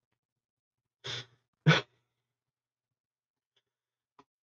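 A man's two short breathy laughs, about a second in and again half a second later.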